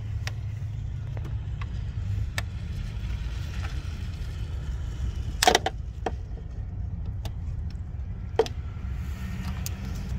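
Needle-nose pliers clicking on a small hose and its clamp under a car's hood: scattered light metal ticks, with one louder clack about halfway through. A steady low rumble runs underneath.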